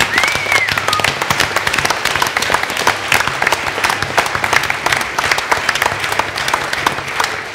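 A crowd applauding: dense, steady clapping from many hands. A brief high call rises and falls near the start.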